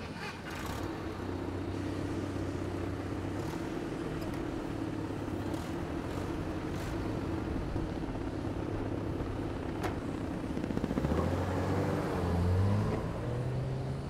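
A motor vehicle's engine running steadily, then revving with its pitch rising in steps about eleven seconds in as it pulls away, with a few faint clicks.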